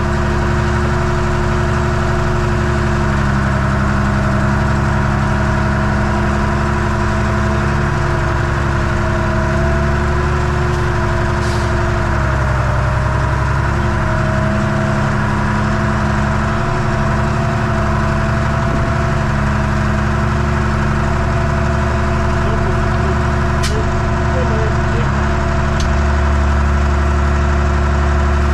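Diesel tractor engine running steadily, heard close up, with a slight dip in pitch about twelve seconds in.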